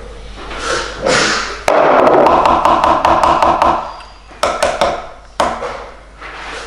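Spatula knocking cake batter off against a plastic mixing bowl and a metal springform pan: a quick run of about a dozen ringing taps over two seconds, then a few more single taps.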